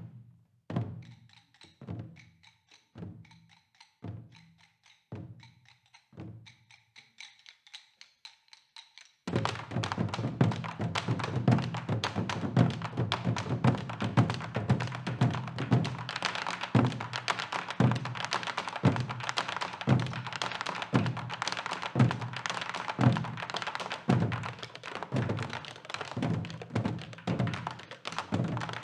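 Live Korean traditional music led by drums: quiet, sparse drum strokes about once a second under a faint held tone, then about nine seconds in the full ensemble comes in loudly with dense, driving percussion.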